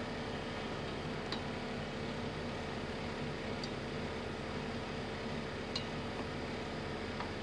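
Soup simmering in a steel pot on an electric cooktop over the cooktop's steady fan hum, with a few faint ticks.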